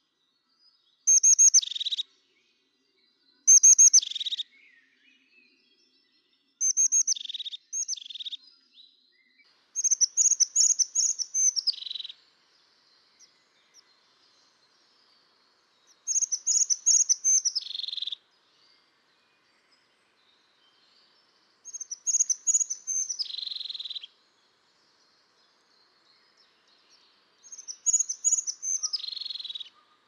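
Crested tit giving its rolling 'zizi-gürrr' call: a quick run of high thin notes dropping into a lower purring trill. The call comes about eight times, and the later ones are longer, about two seconds each.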